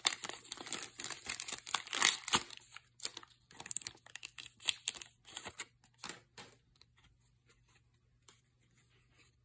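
Foil trading-card pack torn open and crinkled by hand: a dense run of crackling for about two and a half seconds, then scattered crinkles that stop about six and a half seconds in.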